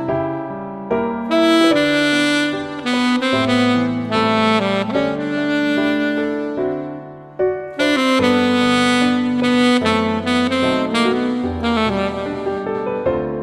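Alto saxophone playing a slow, legato melody of long held notes over a backing track with keyboard and bass. A short breath between phrases comes about halfway through.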